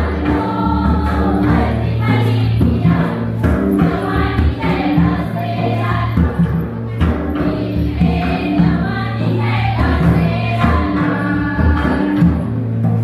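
A Karam festival song: a group of voices singing together over drums and a steady low musical drone.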